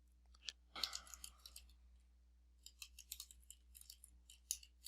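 Faint typing on a computer keyboard: quick irregular key clicks in two short runs, over a steady low electrical hum.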